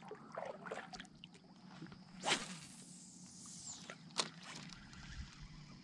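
Light drips and small splashes of water from a kayak paddle, then about two seconds in a fishing cast: a swish followed by line hissing off the reel for about a second and a half. A single sharp click comes about four seconds in.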